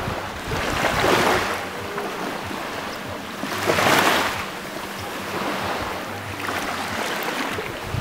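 Small sea waves breaking against rocks and washing up a pebble beach. A swell of surf comes about a second in, the loudest break around four seconds, and a lighter wash near the end.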